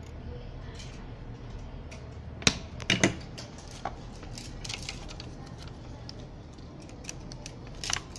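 Scattered light clicks and taps of hands handling a car stereo's metal chassis and ribbon cables. There is a sharp knock about two and a half seconds in, a short cluster of knocks around three seconds, and another near the end.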